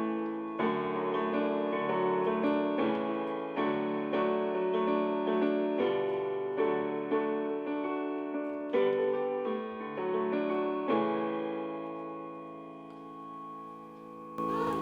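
Piano music: chords and melody notes played in a steady flow, the last chord struck about three quarters of the way through and left to ring and fade.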